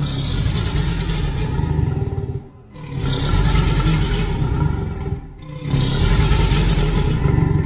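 Reconstructed Triceratops vocalisation played as a sound effect: three long, deep, rough calls of about two seconds each, with short gaps between them.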